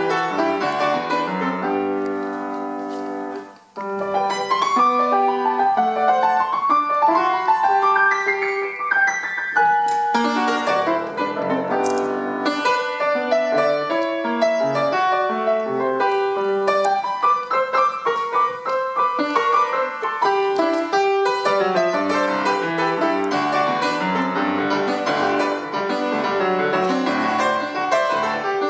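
Solo piano playing an Argentine folk-dance piece: a chord repeated for a second or so, a brief break near four seconds, then a steady stream of notes and chords.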